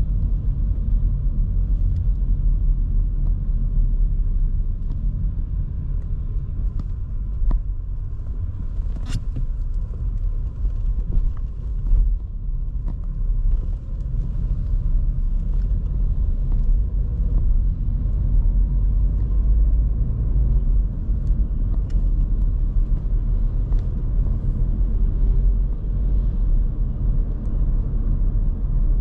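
Steady low rumble of engine and road noise from a 2023 Škoda Kamiq 1.0 TSI three-cylinder turbo petrol engine while driving, heard from the driver's seat. A few sharp light clicks break through, the clearest about nine seconds in.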